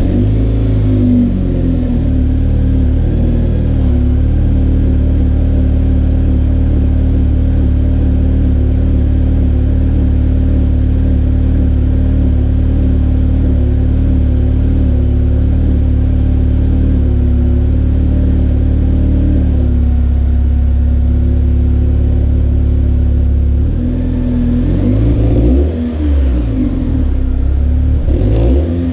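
A bone-stock 2007 Chevrolet Cobalt SS's supercharged 2.0-litre LSJ four-cylinder idling steadily, then revved up and back down a couple of times near the end.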